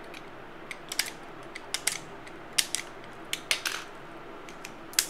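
Scattered sharp clicks and small clatters, irregular and a few per second, from hands working with a pack of AA batteries and a snap-off utility knife.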